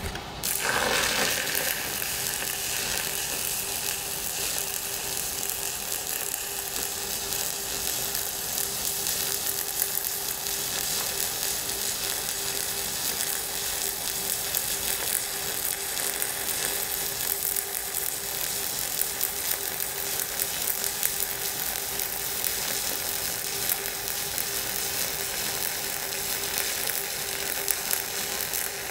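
Shielded metal arc (stick) welding arc burning a Böhler Fox EV 50 low-hydrogen electrode at 120 amps, with a steady crackling sizzle. The arc strikes about half a second in.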